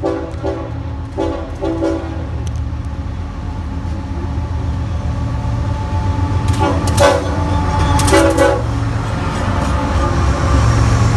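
BNSF diesel freight locomotives' air horn sounding a friendly sequence: four short toots in the first two seconds, then two longer blasts a few seconds later. Underneath, the locomotives' diesel engines rumble, growing louder as the train comes close and passes.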